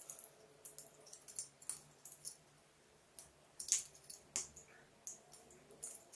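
Light, irregular clicks and clinks of a plastic exhaust-fan impeller being handled and worked at its hub, with two louder clicks a little past the middle.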